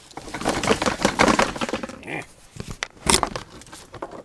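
Shop vac hose and fittings being handled: about two seconds of rustling and scraping, then a few sharp knocks, the loudest about three seconds in.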